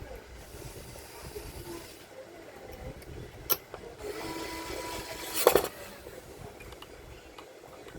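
Small tools and parts being handled while a plasma TV is put back together: a sharp click about three and a half seconds in, a short whirring stretch of about a second and a half, then a louder clatter.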